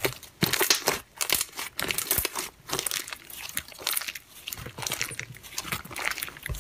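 Hands squeezing and stretching a white, foamy slime, giving a rapid, irregular run of small clicks and pops.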